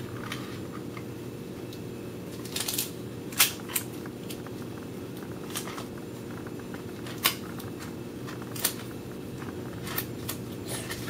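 Paper and sticky tape being handled while a rolled paper part is taped down: a few short, sharp crinkles and clicks, a small cluster a few seconds in and then single ones spaced a second or more apart, over a steady low hum.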